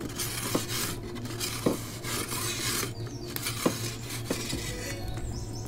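Metal pizza peel scraping in repeated strokes across the stone floor of an Ooni Koda gas pizza oven, with several sharp metallic clicks, as the pizza is turned.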